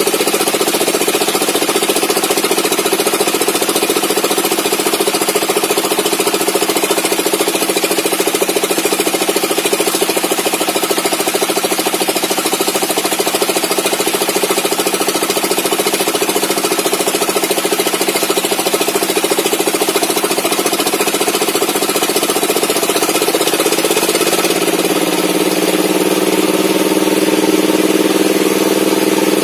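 Engine-driven homemade table saw running loud and steady as it rips a slab of old mahogany, the engine with a knocking beat. About three-quarters of the way through its pitch rises and stays higher.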